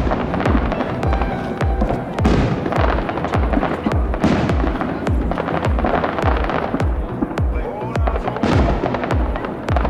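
Fireworks display: aerial shells bursting in quick succession, about two to three deep booms a second, with crackling between them.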